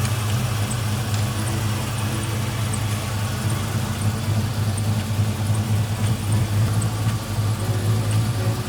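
LS V8 engine in a Holden VH Commodore idling steadily, with no revving.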